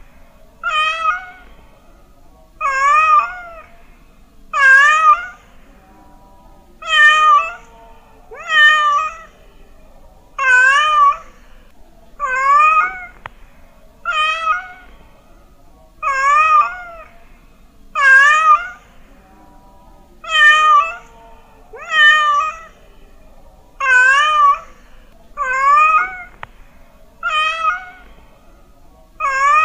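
A domestic cat meowing over and over, each meow short with a wavering pitch, coming about one to two seconds apart.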